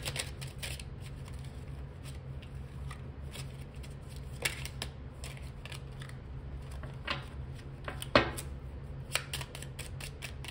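Tarot cards being shuffled and handled: an irregular run of sharp card flicks and snaps, the loudest about eight seconds in, over a steady low hum.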